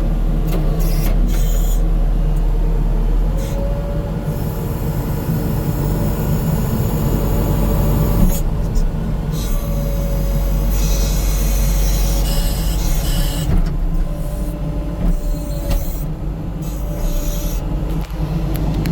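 A New Holland skid steer's diesel engine running steadily. A thin squealing tone comes and goes several times over it, with stretches of high hissing.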